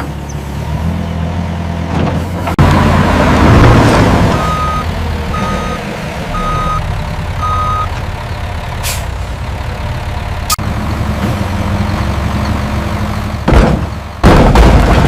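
Heavy machinery diesel engine running steadily, with a loud rush of rock being dumped into a truck bed about three seconds in, then four evenly spaced reversing beeps about a second apart. Short loud bursts of noise come near the end.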